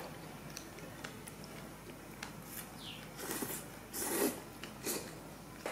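Eating sounds of instant noodles: soft slurping and chewing in short bursts, with a few light clicks and one short rising squeak about three seconds in.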